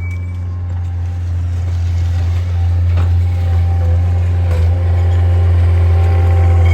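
Heavy diesel engine running steadily with a deep drone, growing gradually louder.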